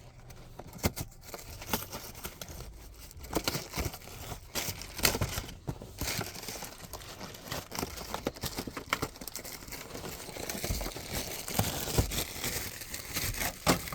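Packaging of a new cabin air filter being torn open and handled: irregular crinkling and crackling with scattered sharp clicks.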